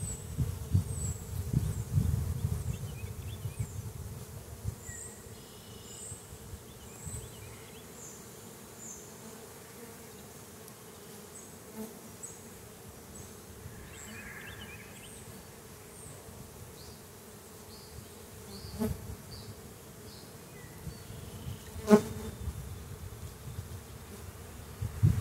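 Honeybees buzzing in a steady hum over an open hive full of bees as its frames are handled. A low rumble in the first few seconds, and two sharp knocks from the frame handling about 19 and 22 seconds in, the second the loudest sound.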